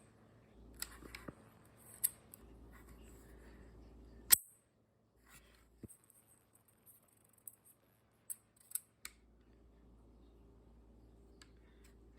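Scattered sharp clicks from the mechanism of a 3D-printed plastic pistol being worked, the loudest snap about four seconds in, over a faint low hum.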